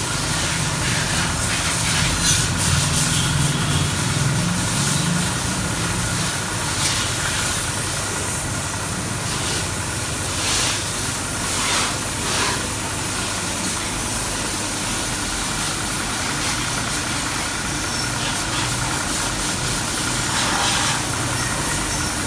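Pressure washer running: a steady motor hum under the hiss of the high-pressure water jet spraying a motorcycle, the hiss swelling now and then.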